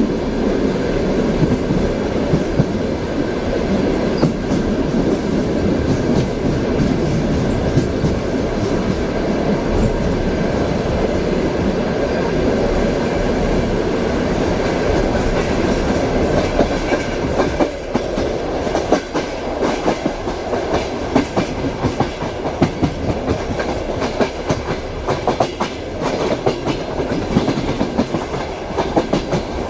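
Train wheels clattering over the rail joints, heard inside a passenger compartment: a steady rumble with rhythmic knocks that grow sharper and more frequent about halfway through.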